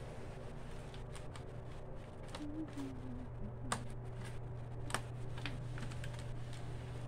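Plastic bottles being handled at their necks and caps: scattered light clicks and crinkles of plastic, two sharper clicks a little past halfway, over a steady low hum.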